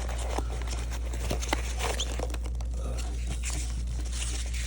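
Packaging being handled: steady rustling and crinkling with scattered light clicks and taps as items are taken out of a subscription box, over a constant low hum.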